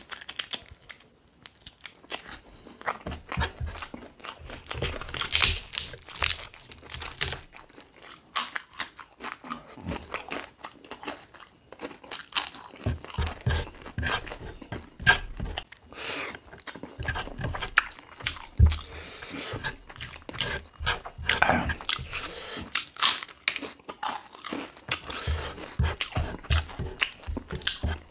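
Close-miked chewing and biting of chicken drumsticks with rice: irregular wet crunches, smacks and clicks of eating, in uneven bursts.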